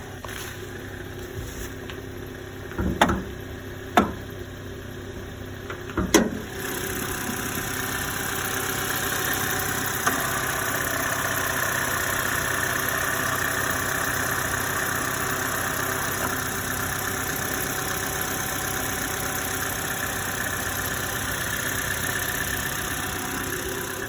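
Opel Mokka 1.8-litre engine idling from a cold start, with a high squeaking noise that shows up when the engine is cold. A few sharp knocks come in the first six seconds; after that the engine sound grows louder, with a steady high hiss-like squeal over it.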